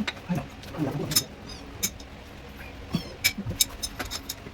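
Scattered sharp clicks and light knocks from objects being handled, with a few small metallic clinks.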